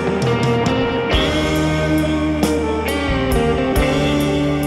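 Instrumental background music: held chords that change every second or so, over regular drum hits.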